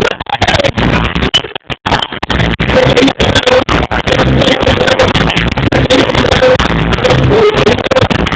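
Live reggae band music recorded on a phone microphone, loud and badly distorted, with brief dropouts about a second and a half in.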